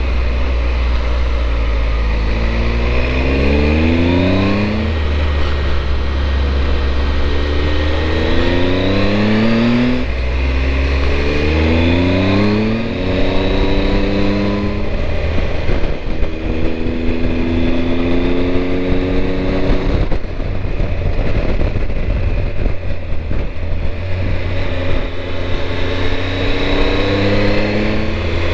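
Triumph Tiger 1200's three-cylinder engine accelerating hard. The revs climb and drop back at each upshift several times in the first fifteen seconds, hold a steady note for a few seconds, then climb again near the end. A constant rush of wind runs underneath.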